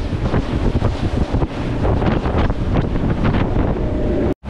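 Heavy wind buffeting the microphone on a fishing boat running at speed offshore, with the boat's motors and the water under it. The sound cuts out abruptly for a moment near the end.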